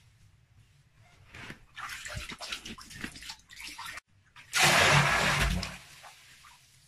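Water splashing and sloshing. About four seconds in, a loud rush of water gushes into a pool for a little over a second, then fades to a faint trickle.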